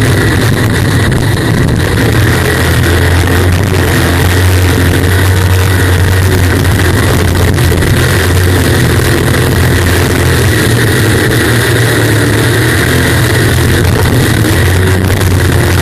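Unlimited racing jet boat's engine running hard at speed, a loud steady drone with a dense rush of wind and water noise, heard from a camera mounted on the boat's bow.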